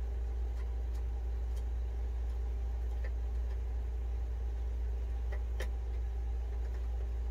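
Steady low hum throughout, with a few faint clicks and ticks of a screwdriver and wire lug being worked on the converter's terminal screws, the sharpest about five and a half seconds in.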